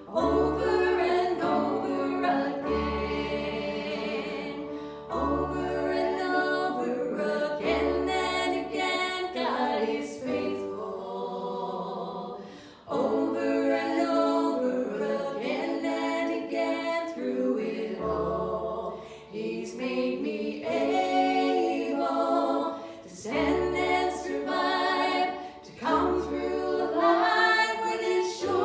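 Several voices singing a worship song together in harmony, over sustained low bass notes that change every couple of seconds, with brief pauses between phrases.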